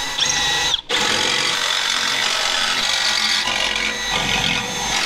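Cordless drill drilling out the rivets that hold a rubber mat to a truck's front bumper, running steadily with a brief stop and restart about a second in.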